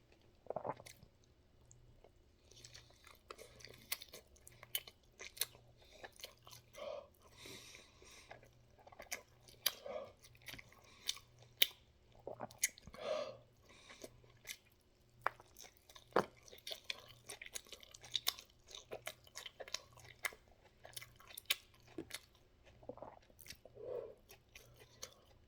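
A person chewing mouthfuls of taco close to the microphone: irregular wet clicks and occasional crunches, with a few short muffled sounds in between.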